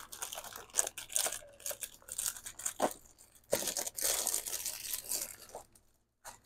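Plastic packaging crinkling and rustling as it is handled, in uneven bursts with a few light clicks, stopping about six seconds in.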